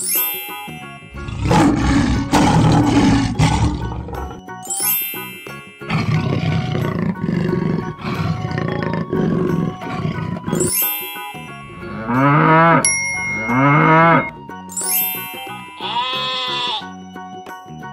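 Cartoon big-cat roar sound effects over children's background music, two long roars in the first half. After these come two rising-and-falling animal calls and a higher call near the end, with a short chime marking each change.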